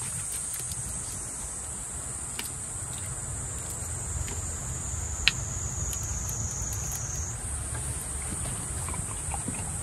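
Steady high-pitched insect chorus, with a low rumble underneath and one sharp click a little past five seconds in.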